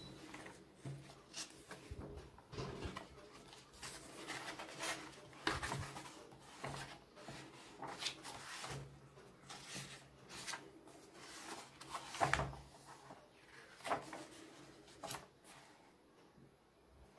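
Glossy pages of a paperback comic book being turned and handled: short paper swishes and soft rubbing rustles at irregular intervals, about one every second or so.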